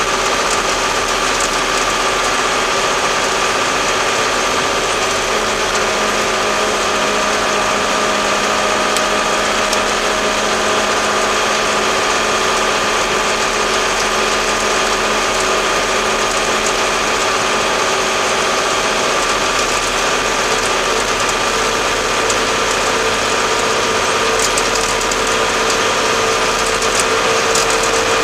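Case 885XL tractor's four-cylinder diesel engine running steadily under way, heard close beside its upright exhaust stack.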